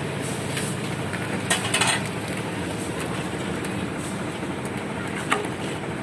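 Concrete mixer machine running steadily, with a brief clatter about one and a half seconds in and a short knock near the end.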